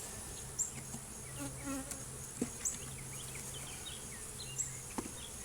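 Honeybees buzzing around an open hive, with a few light clicks and knocks.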